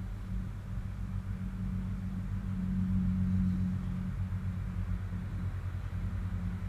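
Steady low background hum with a faint hiss, swelling slightly about halfway through.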